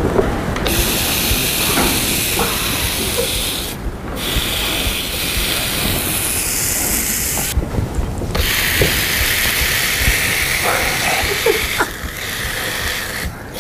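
Food frying in a pan, a loud steady sizzle that breaks off abruptly twice, around four and eight seconds in.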